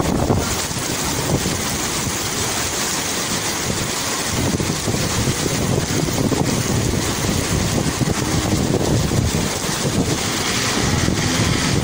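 Heavy rain pouring steadily, with wind buffeting the phone's microphone.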